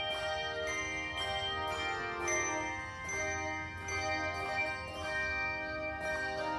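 Handbell choir ringing a run of struck chords in G minor, each stroke sounding several bells at once and the notes ringing on between strokes.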